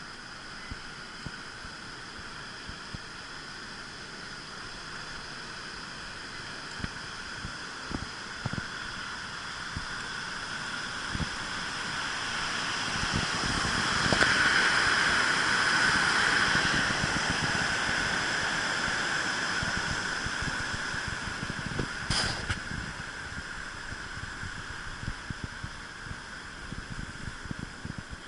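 Rushing floodwater of a river running high after a typhoon, a steady rush that grows louder to a peak about halfway through and then fades, with scattered light knocks and one short sharp sound about three-quarters of the way in.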